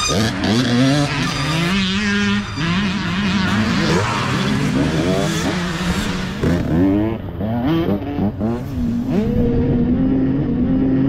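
Dirt bike engines revving hard as riders pass one after another, the pitch repeatedly rising and dropping with throttle and gear changes, several bikes heard at once.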